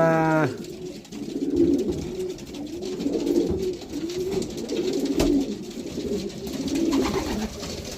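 Racing pigeons cooing in their loft: many overlapping low, warbling coos one after another. A single sharp knock sounds about five seconds in.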